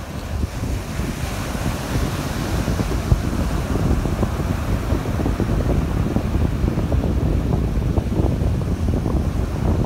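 Wind buffeting the microphone over the steady wash of waves breaking and running up the beach.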